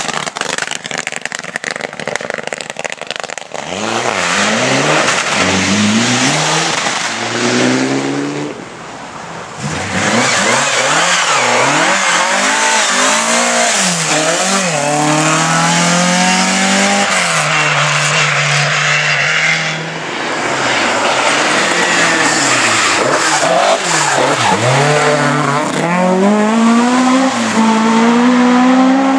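Rally cars at full throttle on a special stage, engines revving up through the gears and dropping back at each shift as they pass one after another. There is a crackling rush of noise in the first few seconds.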